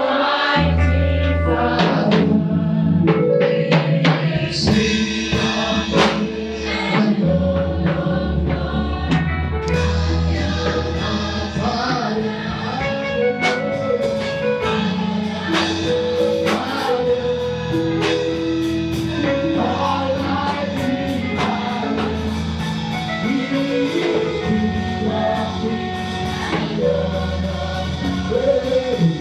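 Gospel music with a choir singing over drums and a bass line.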